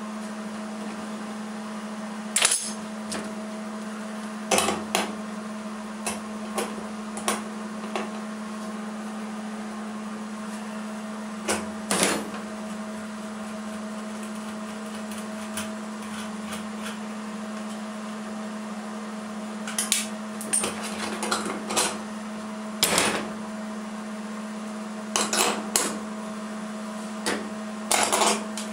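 Metal tools clinking and knocking against sheet steel as a bolt-on holding clamp is worked loose with a wrench and lifted off a tack-welded patch on a truck door: scattered sharp clinks, several close together in the last third, over a steady low hum.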